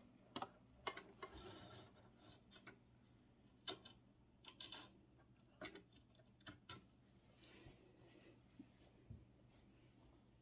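Faint rustling of fabric and a scatter of light clicks and taps as a tea towel is handled and repositioned at a sewing machine that is not running.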